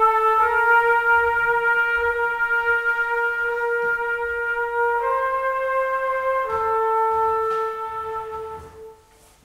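Solo trumpet playing long held notes: one steady tone, a step up about halfway through, back down a little later, then fading away near the end.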